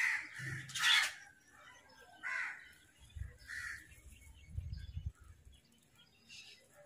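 House crows cawing: four harsh caws in the first four seconds, the second the loudest, and a faint caw near the end. A low rumble runs underneath in the middle.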